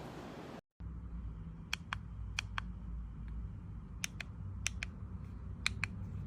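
Small sharp clicks, mostly in pairs a moment apart, about five pairs in all, over a low steady hum.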